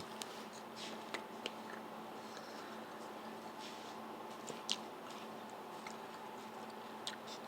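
Faint sounds of a person eating noodles: quiet chewing with a few soft clicks, the sharpest about two-thirds of the way through, over a steady hum.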